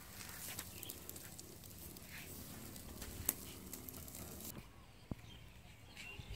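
Pork slabs sizzling over a charcoal grill: a faint hiss with scattered small crackles and one sharper pop. It cuts off abruptly about four and a half seconds in, leaving a faint low rumble.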